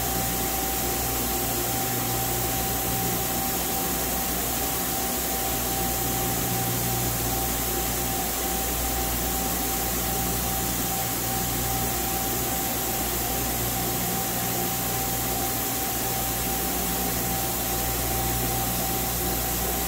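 Powered-up Nakamura-Tome WT-300 CNC turning/milling center humming steadily at rest, with a constant whine over a low drone.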